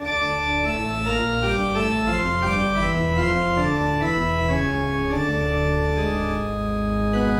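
Organ music: a melody of short, steady notes over low sustained chords, moving into a long held chord near the end.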